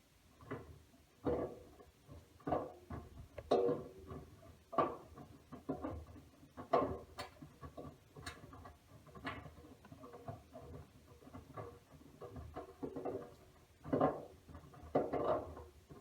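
Wet laundry tumbling in a Miele W1 front-loading washing machine's drum during one turn of the wash rhythm: a run of irregular soft thumps and swishes, about one or two a second, for some sixteen seconds.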